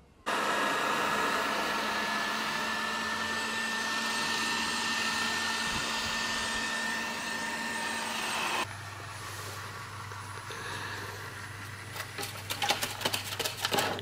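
Neatsvor X520 robot vacuum cleaner running: its suction fan starts suddenly and runs steady with a high whine. After about eight and a half seconds it drops to a quieter low hum, with a run of clicks and knocks near the end.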